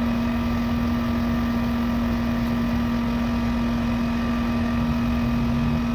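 Central air-conditioning system running: a steady mechanical hum with one constant low tone and a rushing noise underneath.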